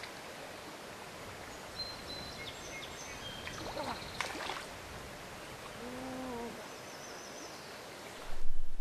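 Steady rush of a flowing trout stream with a few short, high bird chirps, and one brief low pitched call about six seconds in. Near the end a much louder low rumble starts suddenly.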